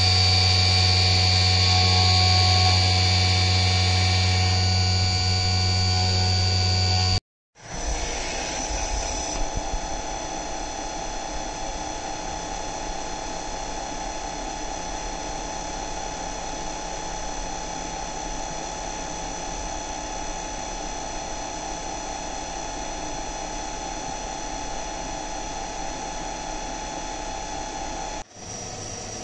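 CNC vertical milling machine cutting a 6082 aluminium engine casing: the spindle and cutter run steadily with a deep hum and a high whine, under flood coolant. About seven seconds in the sound cuts to a different steady machining pass, with the tool working in the casing's bearing bore.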